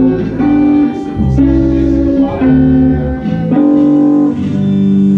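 Guitar playing chords and single notes, each held about half a second to a second before the next, over low bass notes.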